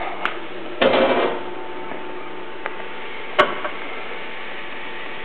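Embroidery machine under test, with a steady mechanical hum throughout. There is a brief mechanical whir about a second in and a few sharp clicks, the loudest about three and a half seconds in.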